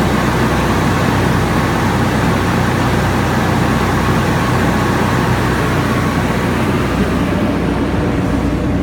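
A 20-ton Trielectron aircraft ground air-conditioning unit running with a loud, steady rush of air over a low hum. It has only just been started and is not yet cooling.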